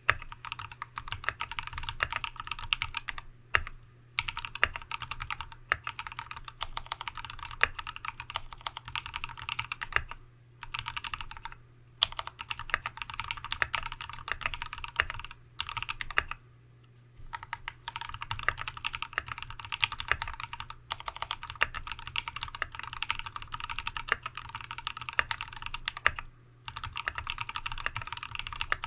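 Continuous fast typing on a TX75v2 aluminium custom mechanical keyboard with a brass plate and lubed Tealios V2 linear switches under Cherry top housings, several keystrokes a second with a few brief pauses.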